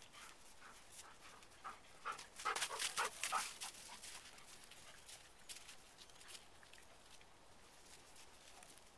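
A dog whining in a quick run of short sounds, loudest about two to three and a half seconds in, then only faint scattered noises.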